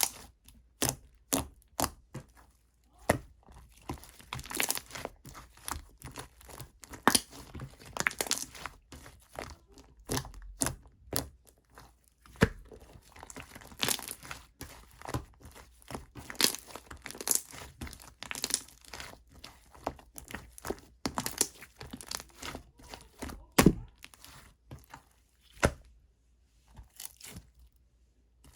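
Chewy clear slime being squished, stretched and poked by hand, making irregular sticky pops and crackles. The sounds thin out near the end.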